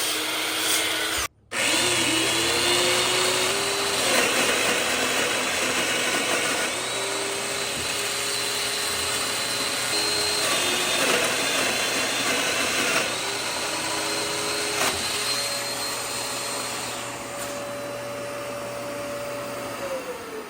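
Electric woodworking power tool running, its motor tone holding steady and then stepping between a few pitches, in several stretches with a brief drop-out about a second in.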